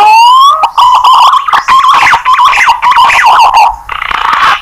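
Green pigeon (punai) lure call, loud: a whistle that rises at the start, then a run of quick wavering, warbling whistled notes that stop a little before the end, followed by a brief rougher burst.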